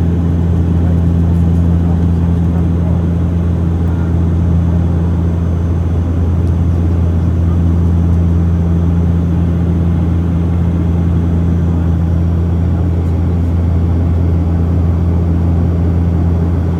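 Airliner passenger-cabin noise during descent: the steady, low drone of the jet engines and rushing airflow, heard inside the cabin.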